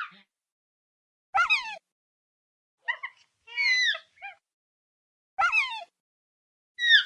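Dilophosaurus sound effect: a series of short, shrill, falling-pitch calls. Four or so separate cries come about a second apart, with silence between them; the one just before the middle is a pair of quick chirps.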